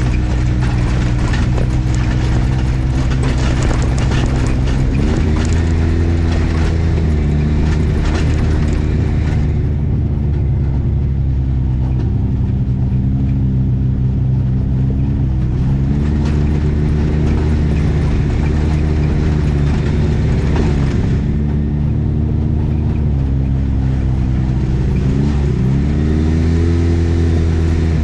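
Side-by-side UTV engine running on a trail ride, its pitch dipping and climbing again several times as the throttle comes off and back on. A rushing noise rides over it for the first third.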